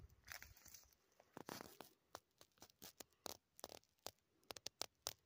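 Soft, irregular crackling and scraping of dry brush twigs and grass as someone pushes through scrub on foot, with a longer brushing rustle near the start and around a second and a half in, then scattered sharp ticks.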